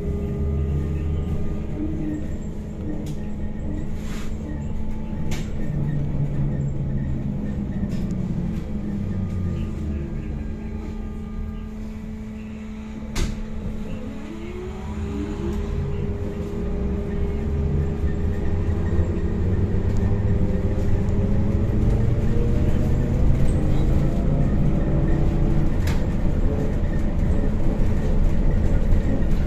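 MAZ-103T trolleybus heard from inside the cabin while driving: low road and tyre rumble under a steady electric drive hum. About halfway through it eases off, then the hum rises in pitch and the sound grows louder as it picks up speed again. A few sharp clicks or rattles come through along the way.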